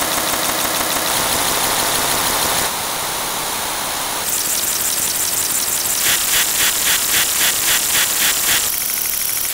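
A loud, dense din of many video soundtracks playing over one another at once, with no single source standing out. Its character shifts every few seconds, and a pulsing at about three or four beats a second runs from about six seconds in until shortly before the end.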